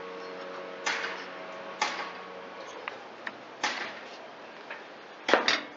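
Handling of hand tools and chainsaw parts during reassembly: a few sharp clicks and knocks a second or two apart, ending in a louder quick double knock, over a faint steady hum that fades out about halfway through.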